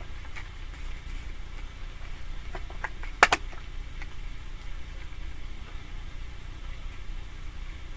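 Steady low hum, with a few light clicks and one sharp tap about three seconds in as tarot cards are handled and laid on a table.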